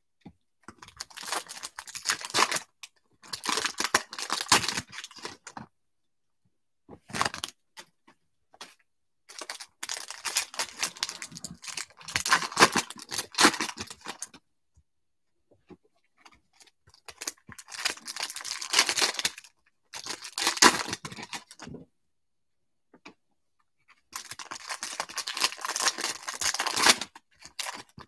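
Foil wrapper of a 2020 Topps Stadium Club baseball card pack crinkling and tearing as it is opened by hand, in several bursts of a few seconds with short quiet gaps between them.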